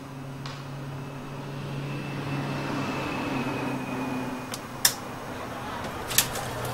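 A steady low hum over background noise, with a faint high thin tone for a few seconds in the middle and two sharp clicks near the end, a little over a second apart.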